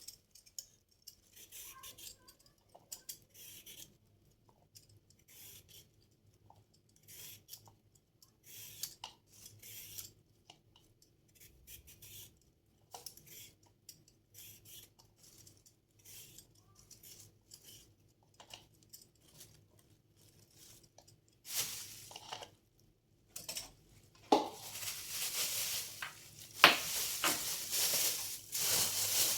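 Scattered short rustles and small clicks of things being handled, then from about two-thirds through, louder clattering and scraping with a few sharp knocks.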